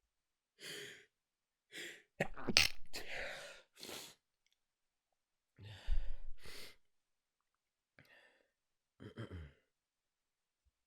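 A woman's stifled sneezes: quick breaths in, then a held-in sneeze about two seconds in and a second, sharper one about six seconds in, with softer breaths afterwards.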